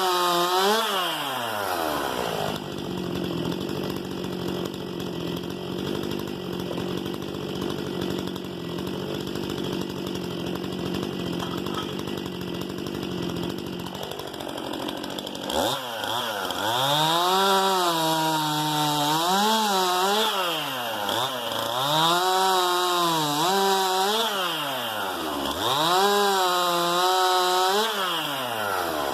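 STIHL MS 261 C-M two-stroke chainsaw dropping to a steady idle a couple of seconds in. About halfway through it is revved hard again, its pitch rising and sagging over and over for about twelve seconds, then dropping back toward idle near the end.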